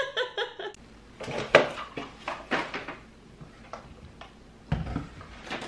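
A run of light clicks and clatters of small hard objects being handled, thinning out to a few single clicks, with a duller knock near the end.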